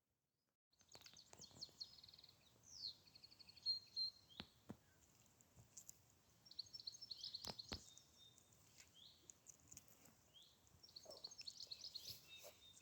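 Faint bird chirps and short high trills in quick runs, with a few sharp clicks scattered among them.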